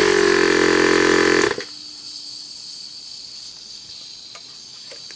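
Small 12-volt direct-drive air compressor running loud and steady, then cut off abruptly about a second and a half in. After it stops, a faint steady high-pitched sound carries on.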